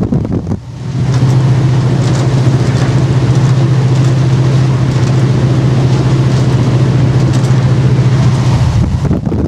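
Class 68 diesel locomotive's engine running under power: a strong, steady low drone that sets in about a second in and drops away near the end, over the rushing wind and rail noise of the moving train.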